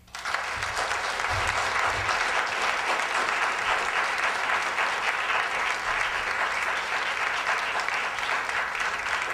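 Audience applauding, starting suddenly and keeping up a steady, dense clapping.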